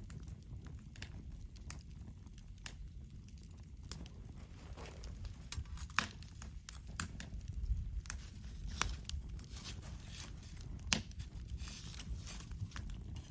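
Wood fire crackling in a campfire stand, with irregular sharp pops and snaps over a low steady rumble; the pops come more often from about four seconds in.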